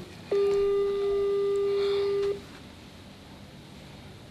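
Smartphone video call's ringback tone: a single steady beep about two seconds long, heard through the phone's speaker while the outgoing call rings and has not yet been answered.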